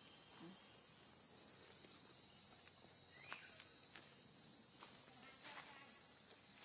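Steady, high-pitched chorus of insects buzzing without a break, with a few faint clicks and rustles in the middle.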